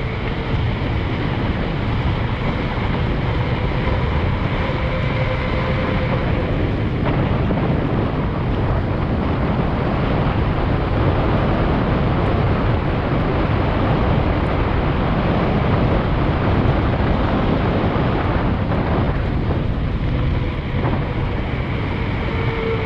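Steady wind rush on a GoPro Hero 7's microphone as a mountain bike descends asphalt at about 35–45 km/h, mixed with the rolling noise of its tyres.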